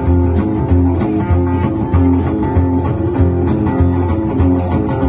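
A rockabilly trio playing live without vocals: electric and acoustic guitars over an upright double bass, which lays down steady low notes under even, sharp clicks on the beat.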